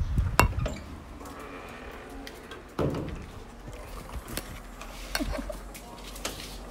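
A metal-framed screen door being handled and opened: a few clicks and knocks, the loudest about half a second in and just under three seconds in, with a brief high whine around the two-second mark.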